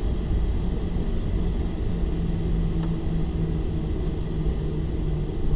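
Steady low rumble and hum inside the cabin of a Boeing 737-800 on the ground, its CFM56 engines at idle power.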